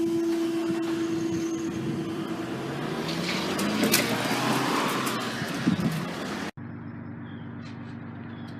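Road traffic at a level crossing: a steady hum and tone, then a vehicle passing with rising then falling noise. Near the end a sudden cut leaves a quieter steady hum.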